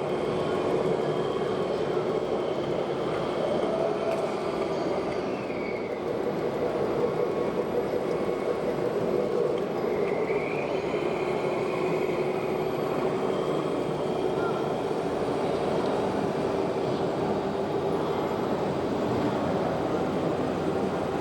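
Steady mechanical running noise of 1/14-scale RC construction machines and trucks, electric motors and gearboxes with a held hum, with a couple of brief higher squeals about five and ten seconds in.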